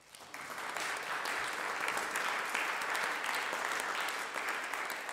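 Audience applauding, starting just after the beginning and beginning to die away at the end.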